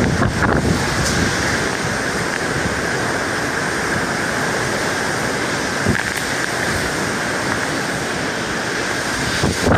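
Typhoon wind and rain making a steady rushing hiss, with gusts buffeting the microphone near the start and again near the end.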